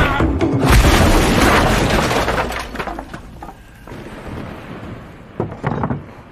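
Fight sound effects: a heavy crash with things breaking, loudest about a second in, fading over the next couple of seconds, then a few small knocks near the end.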